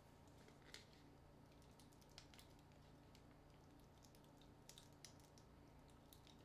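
Faint, irregular small clicks and scratches of a pointed tool working on a smartphone as it is taken apart by hand, over a low steady room hum.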